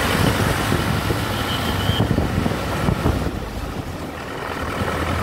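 Diesel vehicle engine running with a steady low hum, easing off a little about three seconds in.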